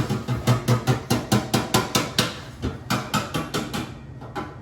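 Rapid tapping or hammering on a wall, about four sharp knocks a second, that slows and stops near the end.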